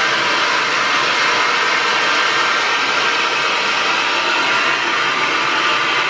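Black Diamond Professional hair dryer running steadily at full blast: a loud, even rush of air with a faint whine in it.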